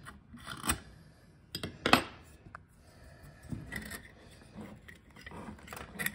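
Small steel rifle parts clicking and clinking: the Remington 597's receiver, guide rods and recoil springs being handled and worked loose against each other and the wooden bench. A handful of separate sharp clicks, the loudest about two seconds in.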